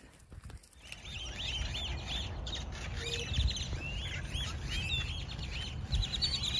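A large flock of birds perched on power lines calling together in a dense, continuous chorus of short rising-and-falling chirps, starting about a second in, over a low rumble.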